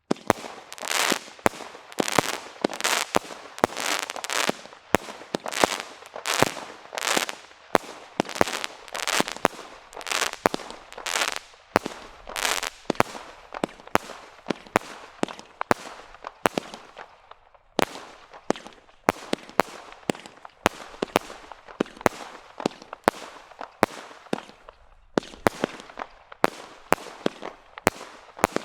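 Firework aerial barrage (Black Cat Apocalypse, a 170-shot single-ignition cake) firing in quick succession, about two shots a second. The shots are mixed with crackling bursts, with longer crackle tails in the first half.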